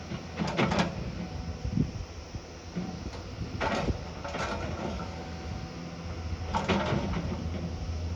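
Heavy earthmoving machine working: its engine runs with a steady low hum, broken by four short rasping bursts of the bucket or blade working gravel and rock.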